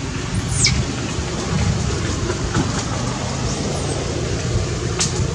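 Wind buffeting the microphone, a steady low rumble. About half a second in, a short high squeak slides sharply downward, with a fainter one later.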